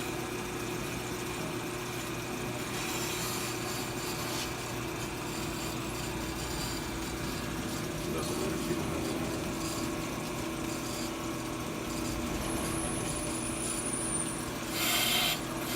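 AMMCO bench brake lathe running steadily with a brake rotor spinning on its arbor, a constant mechanical hum. A brief, louder, hissing scrape comes near the end.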